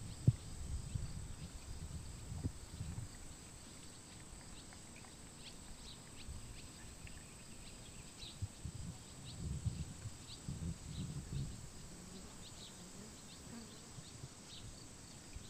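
Quiet outdoor background: low rumbling noise that swells briefly past the middle, with faint, short high chirps scattered throughout.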